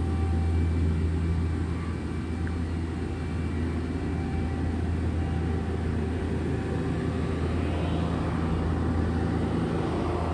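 Steady low machinery hum with a few faint steady whining tones above it and a background hiss.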